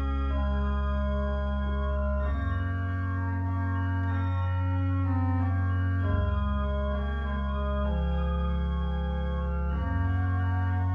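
Three-manual church organ playing slow, held chords over deep pedal bass notes. The chords change about every three to four seconds.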